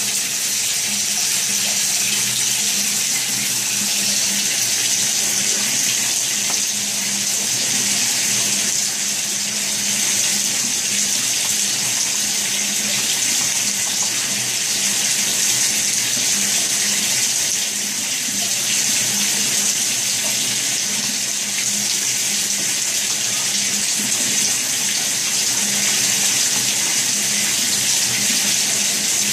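Shower spray running steadily, water pouring onto the tiled wall and a wet parrot on a shower perch, with a faint low hum underneath.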